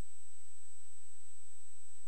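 A steady high-pitched tone, one unchanging pitch, over faint hiss and a low hum, with no other events.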